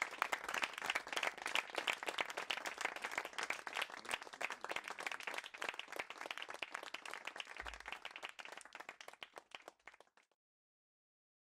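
A small audience applauding with hand claps, the clapping thinning and fading, then cut off abruptly near the end.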